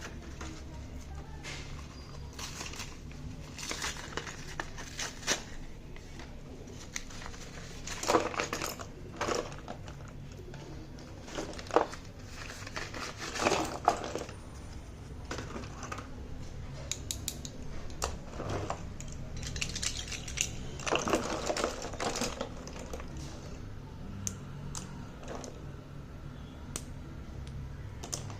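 Slate pencils clinking and clattering against each other as they are handled, in irregular bunches of sharp clicks with short lulls between.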